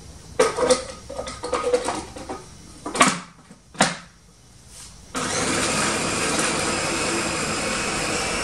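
Clatter and two sharp knocks as the glass bowl of a small electric food processor is loaded and closed. About five seconds in, its motor starts and runs steadily, grinding a small batch of cooked chicken, spinach and chard filling.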